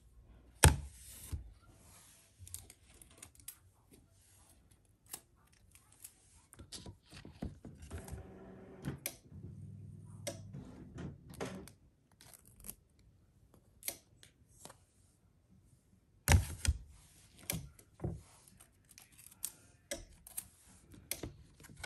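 Sheet of sublimation paper and heat transfer tape being handled by hand: scattered rustling, crinkling and clicking, with tape pulled and torn. The loudest knocks come about a second in and again about three-quarters of the way through.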